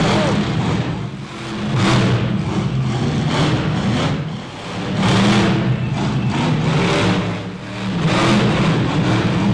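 Monster truck engine revving hard in repeated surges, swelling louder about every three seconds as the truck jumps and climbs the dirt ramps.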